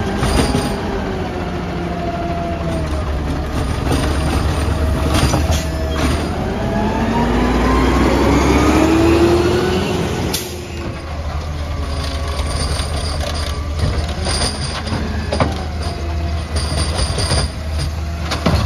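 Peterbilt 320 garbage truck with a McNeilus ZR side-loader body pulling away: the diesel engine revs with a rising pitch, drops back sharply with a click about ten seconds in, then runs steadily as the truck moves off.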